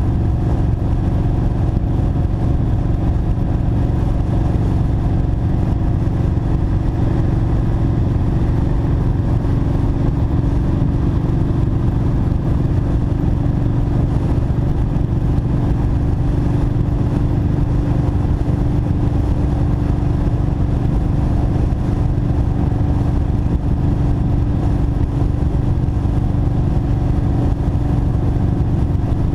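2007 Kawasaki Vulcan Mean Streak's V-twin engine running at a steady freeway cruise, its pitch holding even.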